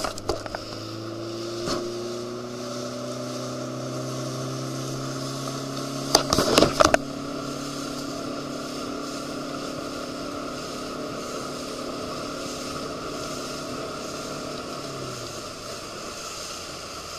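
Motorboat engine running under way. It rises slightly in pitch over the first few seconds, holds steady, then drops a little about fifteen seconds in. A loud clatter of knocks comes about six seconds in, and wind and water hiss runs underneath.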